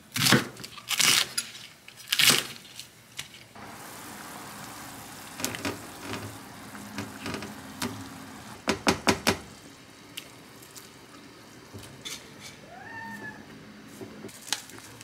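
Chef's knife chopping through peeled onions onto a wooden cutting board, a few separate chops in the first few seconds. Then a pot of stew simmering with a steady hiss, with light clicks and taps, and a cat meows once, a short rising-then-falling call near the end.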